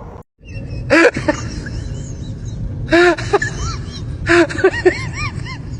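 An animal's calls: groups of short, high, rising-and-falling cries, coming about a second in, again about three seconds in, and several more near the end.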